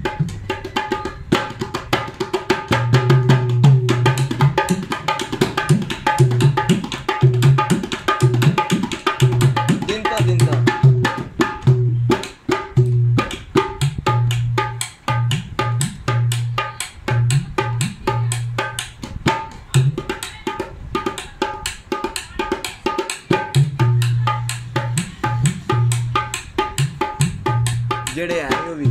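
Dholak played with both hands in a fast solo rhythm: quick treble-head strokes over repeated ringing bass notes, with a short lull about twelve seconds in.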